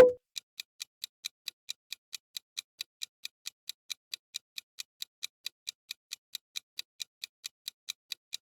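Clock-ticking countdown sound effect: short, even ticks at about four a second, marking the time allowed for a guess.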